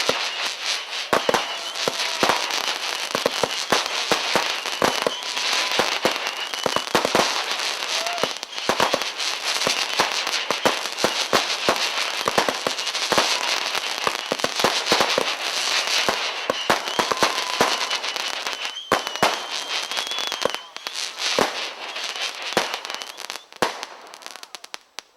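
Consumer fireworks going off in a dense run: a continuous crackle with many sharp pops and bangs on top, thinning out and fading near the end.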